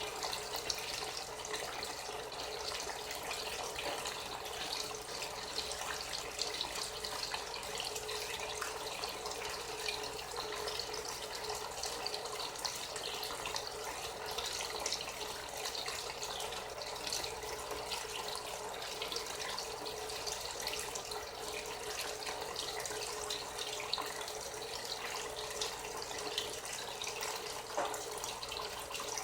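Water running steadily and splashing without a break, like a tap or fill valve running into a basin.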